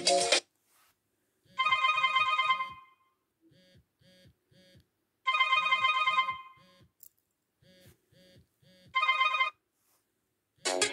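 A phone ringtone played through a Nokia phone's small speaker: a bell-like ringing trill in three loud bursts about three and a half seconds apart, with a few soft short beeps between the bursts.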